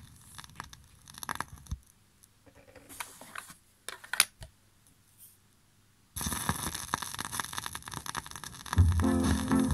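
A 7-inch vinyl single being swapped on a turntable: scattered clicks, taps and scrapes of the record being handled, then a brief near-silent gap. About six seconds in, the stylus drops into the groove and crackling surface noise starts suddenly. Near the end, the next ska record starts playing with a heavy bass line.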